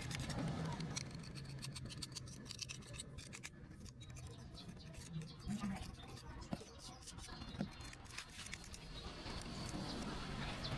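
Hand scrubbing at caked grime on a Honda CD70 engine: irregular scratchy strokes and sharp clicks, busiest in the middle.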